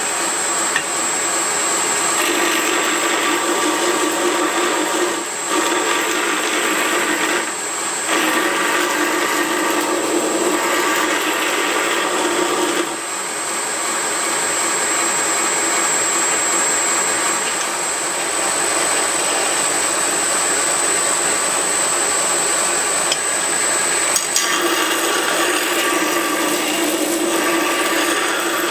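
Knife makers' belt grinder running on a small contact wheel, its abrasive belt grinding the internal radius of a knife handle, with a steady high whine from the machine throughout. The grinding noise breaks off briefly about four times, about five, eight, thirteen and twenty-four seconds in, while the whine carries on.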